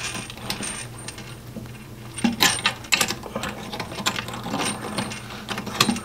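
Irregular light clicks and scrapes of a bidet water hose's coupling nut being hand-threaded onto a chrome T-valve, the clicks coming more often from about two seconds in.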